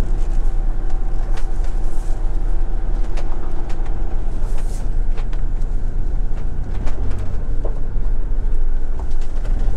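Motorhome engine running as the vehicle drives slowly, heard from inside the cab: a steady low rumble with scattered clicks.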